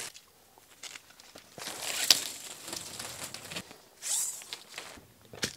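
Flexible plastic conduit and electrical cable being handled as the cable is threaded into the conduit: irregular rustling, rasping scrapes and small clicks, loudest about two seconds in and again about four seconds in.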